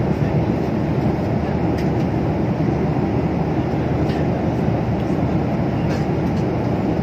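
Steady cabin noise of an airliner in flight: a constant low rushing of engines and airflow, with three faint clicks.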